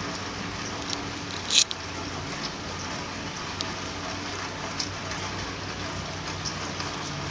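Steady rain with scattered drops tapping on a wet surface close by, and one sharp, much louder tap about a second and a half in.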